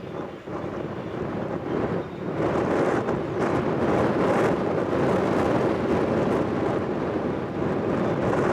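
Strong wind buffeting the microphone in gusts, growing louder about two seconds in.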